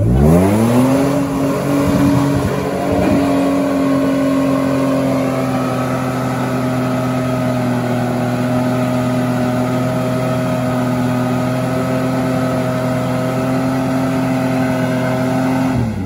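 UAZ off-roader's engine revved up hard within about a second and held flat out at steady high revs, wheels spinning in mud, then dropping off at the end: the truck is digging itself in rather than finding grip.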